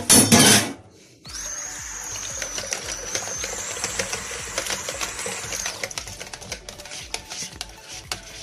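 Water pouring from a plastic pitcher into a plastic bucket of yogurt mixture, a steady splashing pour of about four seconds after a brief loud clatter at the start. Then a wire whisk clicks rapidly against the sides of the bucket as the ayran is whisked.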